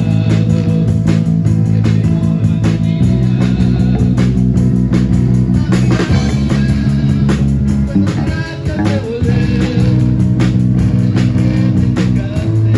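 Live band playing a pop-metal song on electric guitar, bass guitar and drum kit, with a steady beat of drum hits throughout and a wavering melodic line over the top in the middle.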